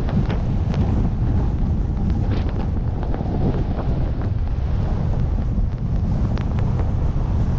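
Wind buffeting the microphone of a camera moving fast down a snowy slope, a steady low rumble, with occasional short hissing scrapes of edges on the snow.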